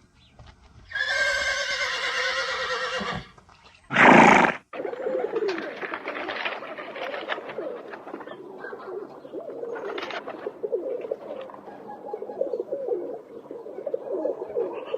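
Animal calls: a long call with a wavering pitch, then a short, very loud blast, then many overlapping low calls that go on to the end.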